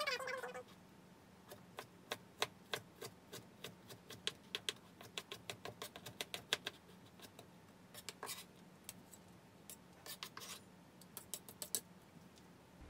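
A kitchen knife chopping onion on a plastic cutting board: a run of quick, uneven taps, then shorter bursts of taps with gaps in between.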